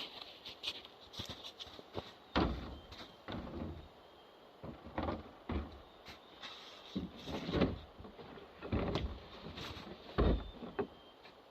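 Irregular rustling scrapes and thumps, about half a dozen of them spread a second or two apart, from the freshly cut small balsam fir and its branches being handled; no chainsaw is running.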